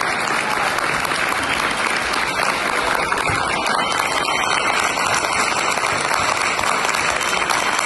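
Audience applauding steadily, with one pair of hands clapping close by.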